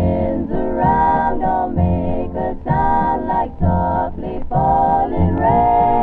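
A 1950s oldies song on a vintage radio: a sung melody over bass and band backing, thin and muffled with no highs, as if playing in another room.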